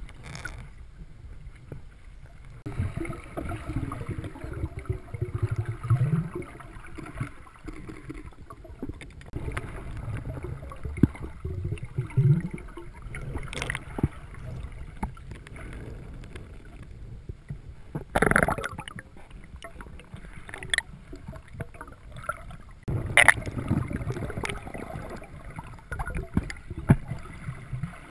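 Muffled underwater sound heard through a submerged waterproof camera housing: water rumbling and swishing, with a few sharp knocks, the loudest a little past the middle.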